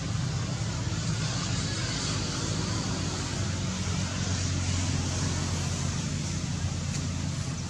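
Steady low engine rumble with a hiss over it, a little louder in the middle.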